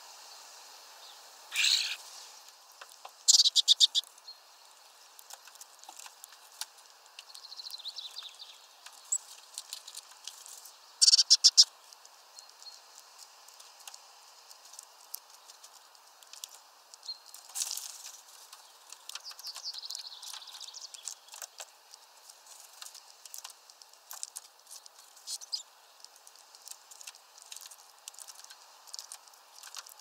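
Songbirds at a feeder: scattered short chirps and calls, with two short, loud bursts of rapid clicking about three and eleven seconds in, and many faint taps in between.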